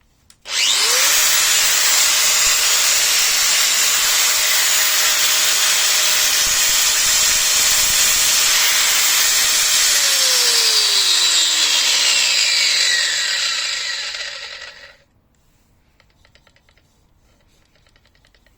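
Metabo WEA 17-150 Quick 1,700-watt angle grinder run with no load: the motor spins up with a rising whine about half a second in and runs steadily for about nine seconds. It is then switched off and winds down with a falling whine over about five seconds.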